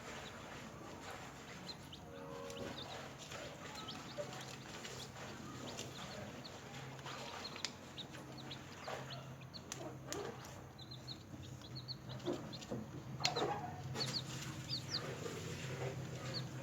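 Newly hatched chicks peeping: many short, high chirps, coming thicker in the second half, with a few sharp taps among them. A steady low hum runs underneath.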